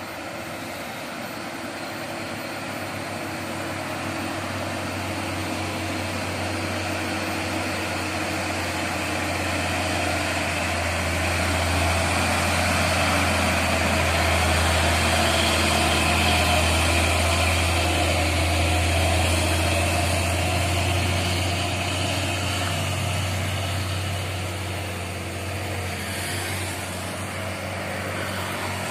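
Hino 500 cargo truck's diesel engine pulling slowly up a steep grade under load, a steady low drone that grows louder as the truck comes up and passes about halfway through, then fades as it climbs on.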